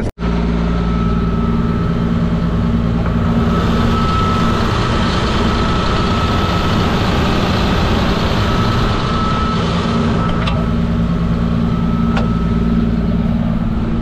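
Caterpillar D7R bulldozer's diesel engine running steadily, warming up shortly after a cold start in extreme cold, with a thin steady high whine over the engine note. The sound drops out briefly just after the start.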